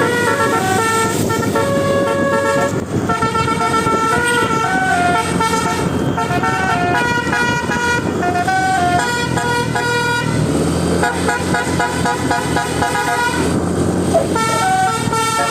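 Indonesian bus 'telolet basuri' musical air horn playing a tune: a quick run of stepped horn notes that breaks off briefly near the end, over the low sound of the bus's engine.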